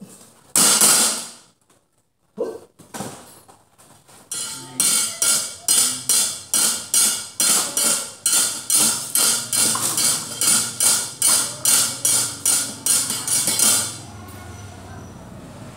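A wayang puppeteer's keprak, metal plates on the puppet chest, rapped with the wooden cempala in a fast, steady clatter of about two to three strikes a second, giving cues. It stops abruptly about fourteen seconds in, leaving a steady low hum.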